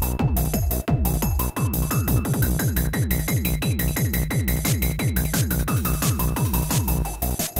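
Techno pattern played on a Korg Electribe groovebox: a dense, driving beat with quick falling-pitch bass notes, about five a second, and a faint steady high tone above.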